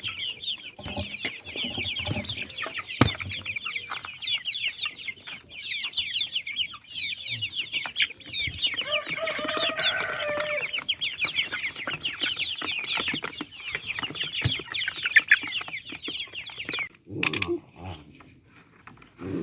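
A flock of hens clucking and chattering around a feeder: a dense, unbroken stream of short high calls. It cuts off suddenly near the end, and a couple of short scraping sounds follow as a plastic bucket is cut with a knife.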